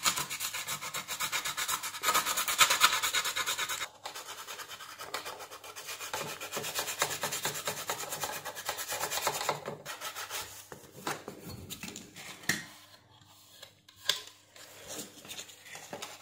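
Fast back-and-forth rubbing of a hand-held pad over a circuit board's tracks, scraping away the coating to expose a cracked copper track. The rubbing is strongest for the first four seconds, keeps on until about ten seconds in, then gives way to a few scattered scrapes.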